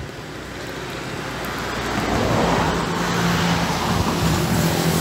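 A motor vehicle on the road, its engine and tyre noise growing louder over the first two seconds, then staying loud and steady.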